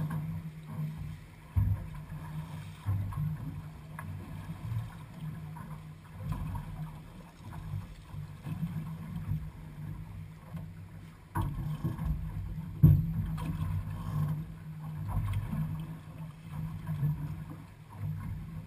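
Choppy water slapping and surging against a small boat's hull, in an uneven low rumble, with a few sharp knocks, the loudest about two-thirds of the way through.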